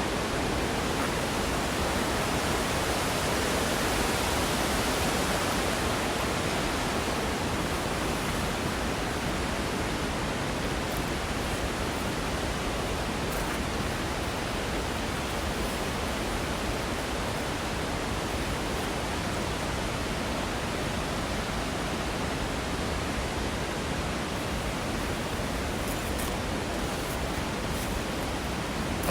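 Steady rush of water falling at a creek waterfall, an even noise without breaks, a little louder in the first few seconds.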